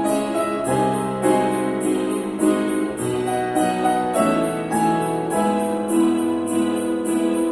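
Keyboard music with a piano sound: held melody notes over sustained low bass notes, with a steady, even high rhythm accompanying them.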